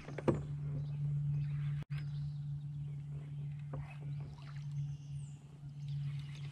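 Steady low hum with a sharp click just after the start, then a few light clicks and knocks.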